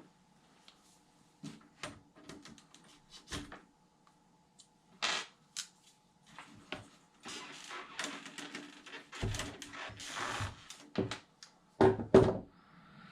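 Small metal parts and hand tools being handled on a workbench during bearing replacement on an RC truck's front bearing carrier. Irregular clicks and knocks, a stretch of scraping in the middle, and two loud knocks near the end.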